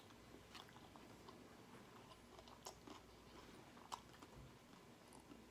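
Faint chewing of a mouthful of onion-wrapped burger, with soft mouth clicks scattered through and a sharper click about four seconds in.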